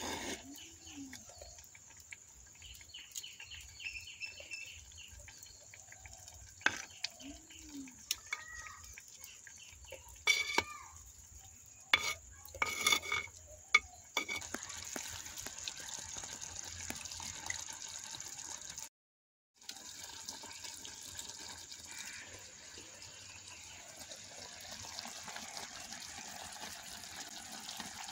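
A metal spoon clicks and scrapes against a clay pot as fish pieces are turned in boiling water. From about halfway there is a steady bubbling as the pot of fish simmers over the wood fire.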